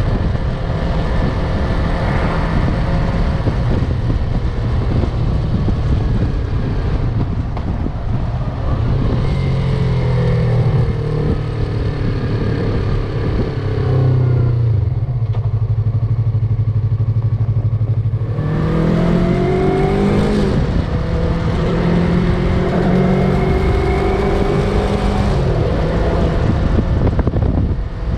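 Yamaha MT-03 motorcycle engine under way, its pitch rising in steps as it accelerates through the gears. About midway it eases to a steady low tone for a few seconds, then it climbs again.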